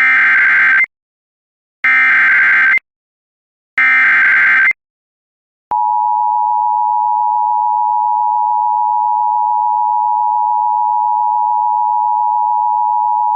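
Emergency Alert System SAME header: three bursts of two-pitch digital data tones, each about a second long and two seconds apart. About six seconds in, the steady two-tone EAS attention signal (853 and 960 Hz together) starts and holds.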